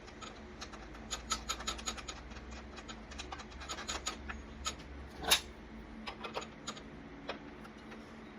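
Light clicks and scraping from the parts of a DeWalt 12-inch miter saw being handled during a blade change, with one louder knock about five seconds in.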